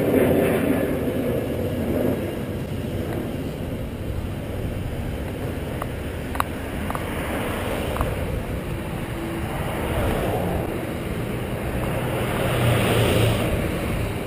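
Road traffic passing on the adjacent street: a loud vehicle at the start fading away by about two seconds in, a steady traffic hum, then another vehicle swelling up and passing near the end. A few light clicks in the middle.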